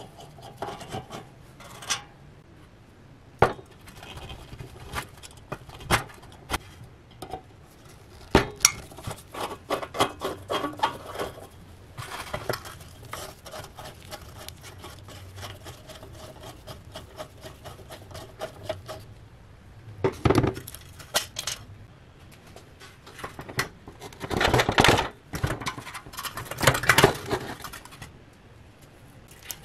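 Steel tool scraping and picking at flaking rust on an old propane camping stove's sheet-metal top, with many sharp metallic clicks and taps. Near the end the steel stove top clatters as it is handled on the bench.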